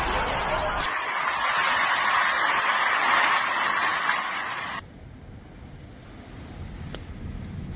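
Cyclone wind and heavy rain giving a loud, steady hiss, which cuts off abruptly about five seconds in to a much quieter, low wind rumble with a single click near the end.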